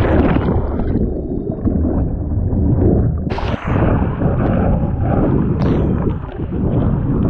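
Water rushing and splashing around a stand-up paddleboard as it rides a small breaking wave, with wind buffeting the microphone. The sound is muffled for the first three seconds while whitewater washes over the board-mounted camera, then sharper splashes break in about three and a half seconds in and again near six seconds.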